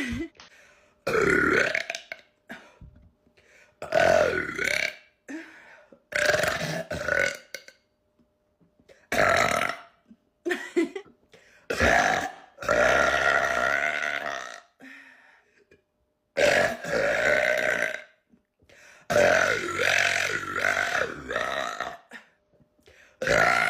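A woman burping loudly, about nine burps one after another with short silences between them. Some burps are short; others are drawn out for two to three seconds.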